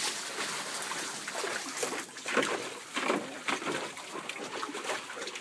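Water splashing and sloshing in a plastic kiddie pool as a dog paws and stomps through it, in irregular splashes.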